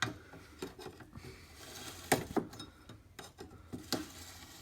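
Irregular clinks and knocks of metal hand tools at work on a car, with a few sharp hits, the loudest about two seconds in and another near four seconds.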